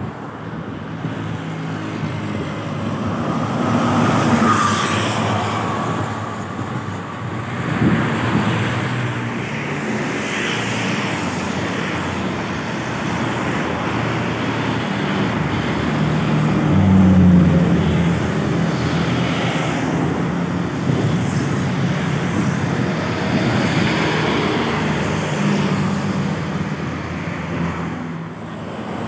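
Road traffic passing close by: cars, motorcycles and trucks go by one after another, each swelling and fading, with the loudest pass-by about 17 seconds in.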